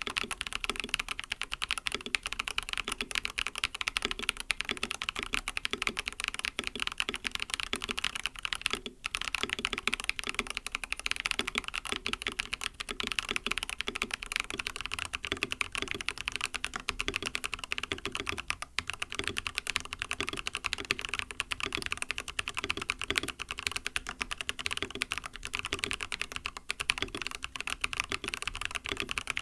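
Continuous fast typing on a mechanical keyboard with lubed MMD Coral linear switches (45 g) in an mStone Groove T case with silicone plate foam: dense, even keystroke clicks with only a couple of brief pauses.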